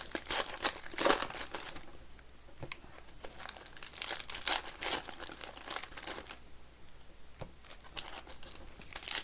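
Trading card pack wrappers crinkling and tearing in irregular bursts as packs are opened and handled by hand.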